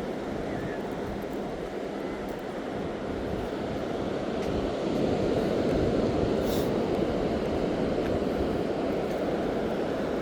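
Steady rush of surf and wind on an open beach, swelling a little about halfway through.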